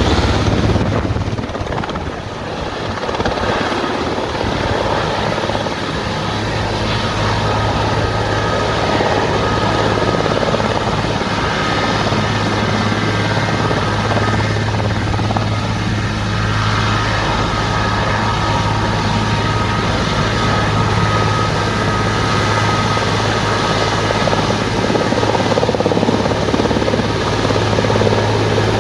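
Atlas Oryx helicopter hovering low while refilling its water bucket: a loud, steady rotor drone, with a high engine whine that comes up more clearly about a third of the way in.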